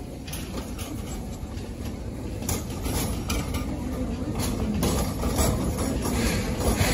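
Passenger cars of a steam excursion train rolling past on the track: a low rumble of wheels with irregular clicks and knocks, growing louder as the cars come closer.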